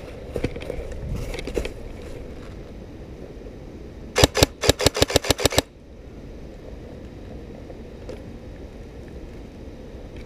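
Airsoft gun firing a rapid burst of about a dozen sharp shots in under a second and a half, roughly eight a second, a few seconds in. Earlier there are a few light knocks and rustles.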